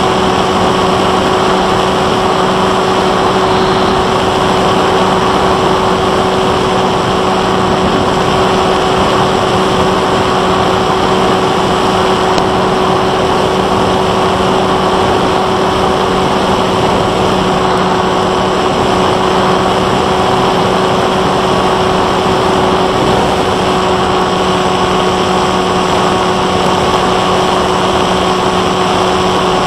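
Brushless electric motor and propeller of a Bixler 1.1 foam FPV plane (Turnigy 2826-6 outrunner, 8x3.4 prop), recorded by the onboard camera in flight: a steady whine held at one pitch over a rushing noise of air.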